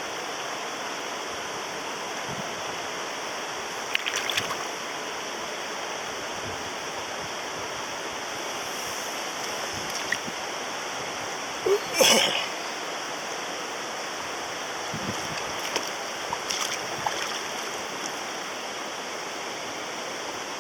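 Steady rush of a mountain stream's flowing water, with a few brief sharp sounds over it, the loudest about twelve seconds in.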